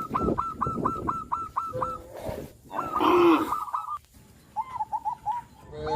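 Birds calling: a fast run of repeated short chirps, about eight a second, in several bursts, with a short lower call falling in pitch about three seconds in.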